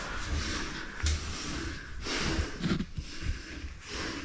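A person breathing hard through the nose and mouth amid scuffing and scraping movement, with a short knock about a second in.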